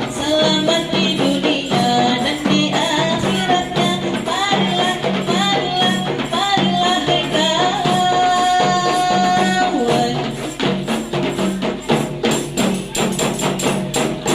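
Rebana frame-drum ensemble playing a quick, steady beat under a high solo voice singing sholawat. About eight seconds in, the singer holds one long high note, then stops, and the drums carry on alone.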